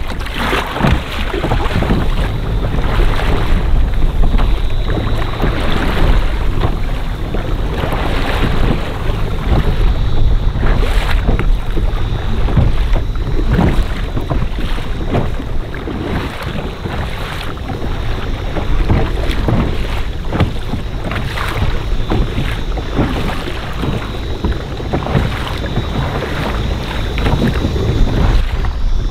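Wind buffeting the microphone on a moving kayak, with irregular splashes of water.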